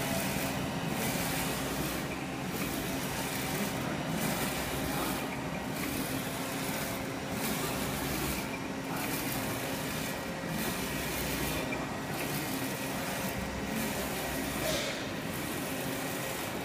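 UV flatbed printer running: a steady mechanical hiss and hum that dips and returns in an even cycle about every one and a half seconds as the print carriage sweeps back and forth over the phone cases.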